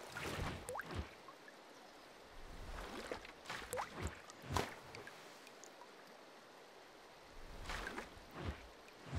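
Water sound effects: scattered drips and plops, some with a short rising pitch, and gurgling little splashes, coming in irregular clusters with short quiet gaps between.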